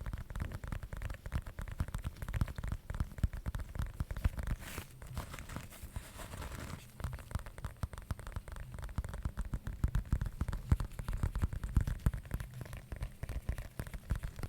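Fingers tapping and scratching rapidly on a handled object, a dense stream of small clicks. About five seconds in there is a brief crinkly, scratchy rustle.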